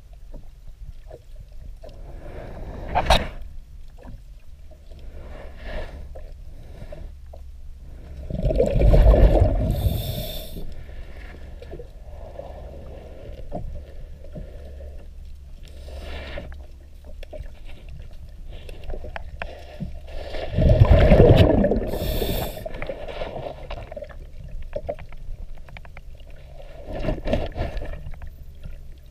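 Scuba diver breathing through a regulator underwater: loud bubbling exhalations about twelve seconds apart, each followed by a brief hiss of inhalation, with a sharp click about three seconds in and small knocks between.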